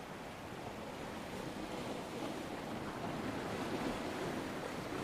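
Ocean surf ambience: a steady wash of waves that swells slightly louder over a few seconds.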